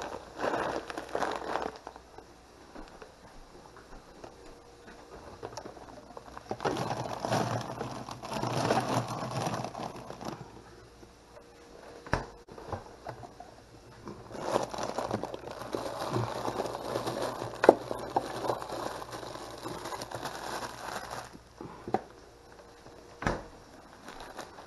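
Plastic bags of frozen vegetables crinkling and rustling as they are handled, in two long stretches, with a few sharp knocks in between.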